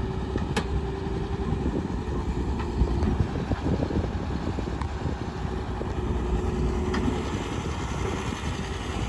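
Diesel engine of heavy farm or construction machinery running steadily, with a faint steady whine and a few light knocks.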